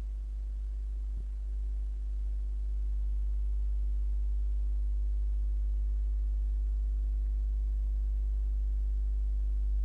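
Steady low electrical hum, with fainter steady higher tones above it.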